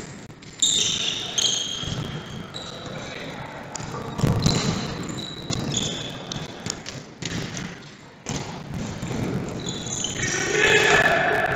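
Futsal ball being kicked and bouncing on an indoor hall floor: a run of irregular thuds during play, with players shouting, loudest near the end.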